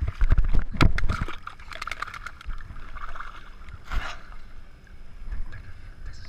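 Shallow lake water sloshing and splashing right at the microphone, with a quick cluster of sharp splashes in the first second or so and another splash about four seconds in.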